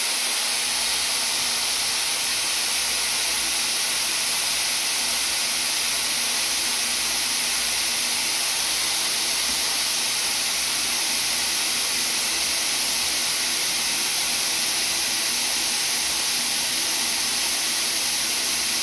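Dyson Airwrap hair styler running, blowing air through its brush attachment: a steady hiss of rushing air with a faint hum beneath, unchanging throughout.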